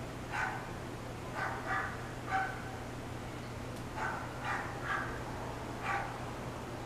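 A dog barking in short, separate barks, about eight of them at uneven intervals.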